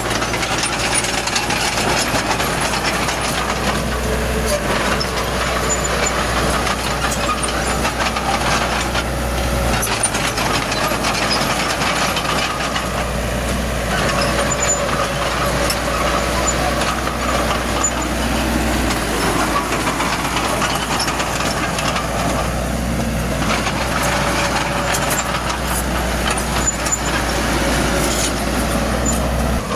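Heavy diesel earthmoving machinery working: a loud, steady engine rumble whose pitch shifts a little with load, with scattered clicks and clatter.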